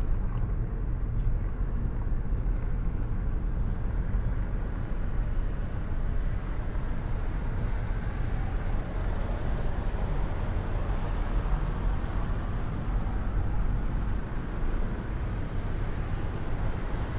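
Steady road noise of a car driving on a snowy road, heard from inside the cabin: a continuous low rumble of engine and tyres.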